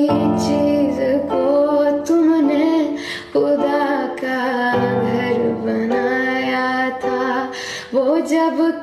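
A woman singing a Hindi song over instrumental backing, her voice gliding between held notes.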